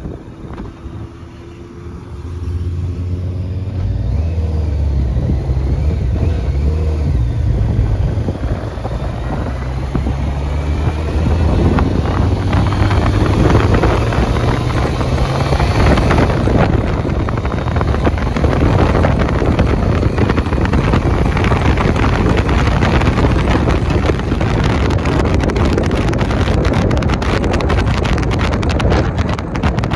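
Motorcycle engine pulling out of a roundabout and accelerating through the gears, its note climbing and stepping up several times, with wind rushing over the microphone throughout.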